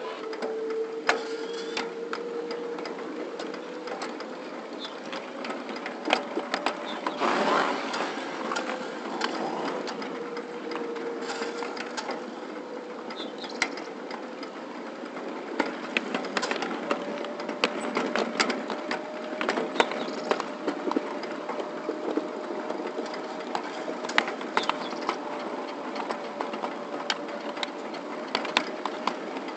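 Ride-on 7.5-inch gauge miniature train running along its track: a steady whine that drifts slowly in pitch, with irregular clicks of the wheels over the rail joints. There is a brief louder rush about seven seconds in.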